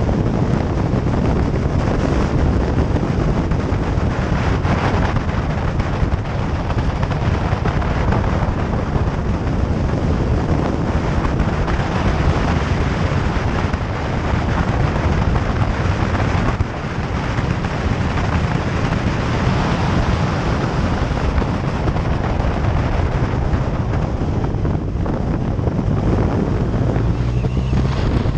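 Heavy wind rushing over the microphone of a motorcycle riding at speed, with the engine running underneath; the engine's low hum shows more plainly near the end.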